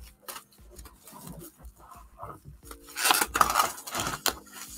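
Plastic wrapping on packs of canvas panels crinkling and rustling as they are handled, with light clicks and taps. The loudest crinkling comes about three seconds in and lasts about a second.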